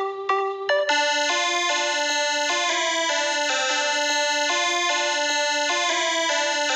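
Synthesized keyboard melody. A short plucked note gives way, about a second in, to a bright, sustained electronic tone that steps from note to note about twice a second.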